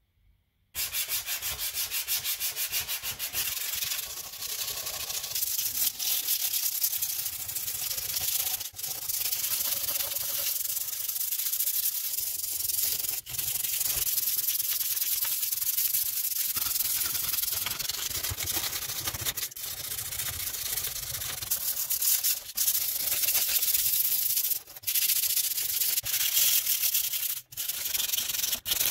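Rust being sanded off a steel handsaw blade by hand with 100-grit aluminium oxide sandpaper: a continuous scratchy rasp that starts about a second in and breaks off briefly a few times.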